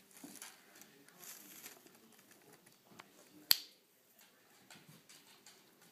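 Faint rustling of cardboard and crumpled packing paper as a cat moves about inside a delivery box. A soft click comes about three seconds in, then a single sharp, loud click just after.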